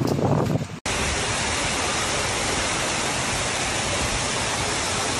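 Heavy rain pouring down: a dense, steady hiss that starts abruptly about a second in, after a short low rustle.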